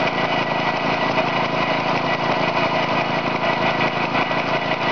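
Small Briggs & Stratton lawnmower engine, converted into a homemade air compressor, running steadily at a constant speed as it builds pressure to about 60 psi.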